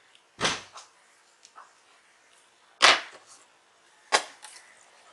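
Three sharp knocks, with a few lighter clicks between them: hard objects and the laptop's plastic case being handled on the workbench.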